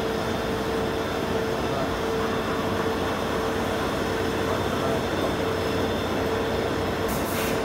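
CNC lathe drilling a spinning workpiece with a Kennametal HTS drill under flood coolant: a steady machining and coolant noise with a constant tone through it. A brief hiss comes near the end. The operators judge the feed too slow, though the chips are good.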